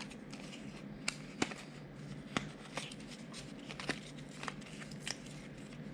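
Light clicks and ticks of a small plastic key fob shell and a coin-cell battery being handled, scattered irregularly over a faint steady hum.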